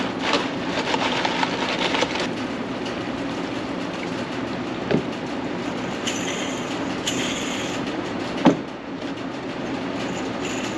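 Steady mechanical running noise with a fine, continuous clatter, broken by two short hissing sprays about six and seven seconds in and a single sharp knock near the end.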